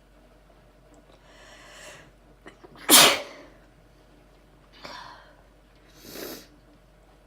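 A person sneezing: a long drawn-in breath, then one loud, sudden sneeze about three seconds in, followed by two quieter bursts of breath.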